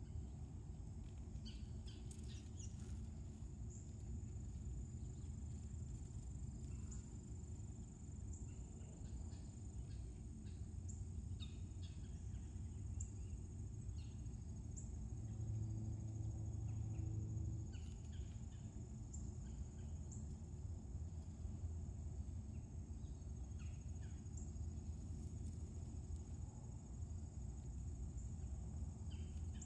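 Open-field ambience: a steady high insect drone, scattered short bird chirps and a constant low rumble of wind. A low hum swells briefly about halfway through.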